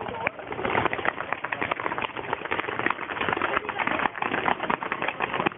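Ground-set firework fountains spraying sparks, a dense continuous crackle and hiss with many sharp little pops, heard through a mobile phone's microphone.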